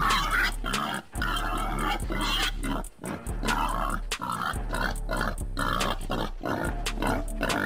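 Wild boar caught in a wire snare, calling in a run of rough grunts and squeals broken by short pauses. Background music runs underneath.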